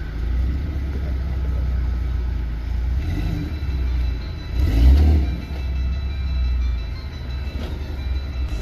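Off-road 4x4 vehicle's engine running with a heavy low rumble, swelling louder about five seconds in.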